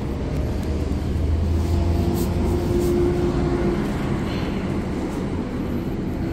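Steady low rumble of vehicle traffic, swelling a little a couple of seconds in, with a steady hum over it.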